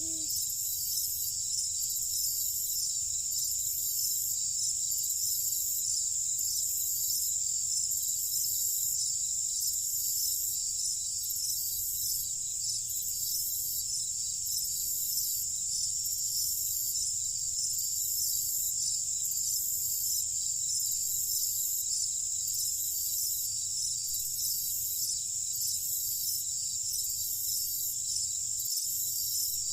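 Night insect chorus of crickets trilling steadily at a high pitch, with a higher layer that pulses on and off about once a second.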